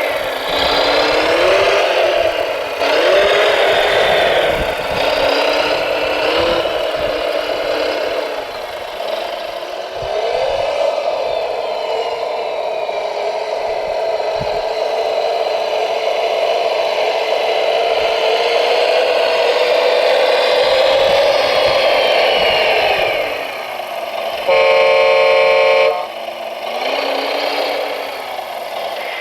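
Motors and engine-sound modules of radio-controlled construction vehicles whining and changing pitch as the machines work, with clattering. Near the end a horn sounds loudly for about a second and a half.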